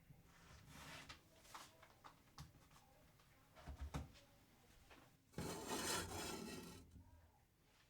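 Kitchen handling sounds: scattered light taps, clicks and rubbing, a quick cluster of knocks a little before the middle, then a loud hiss starting about five and a half seconds in that fades away over about a second and a half.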